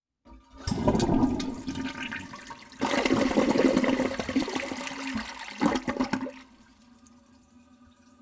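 Toilet flushing, recorded very close: a loud rush of water that surges again about three seconds in and gurgles briefly near six seconds, then drops off abruptly, leaving a faint steady hum.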